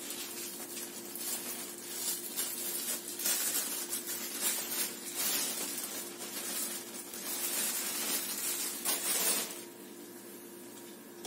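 Plastic bag of sliced sandwich bread rustling and crinkling as it is opened and slices are pulled out; the rustling stops about nine and a half seconds in.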